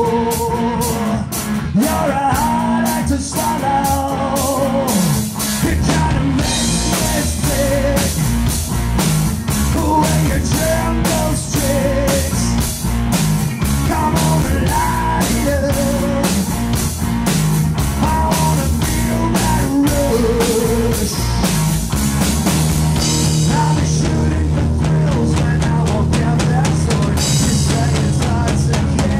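Live rock band playing: electric guitar, bass guitar and drum kit with a steady beat, the cymbals opening up about six seconds in.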